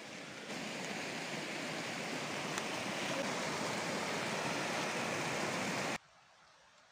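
Small forest stream cascading over mossy rocks: a steady rush of water that cuts off suddenly about six seconds in, leaving only a faint background hush.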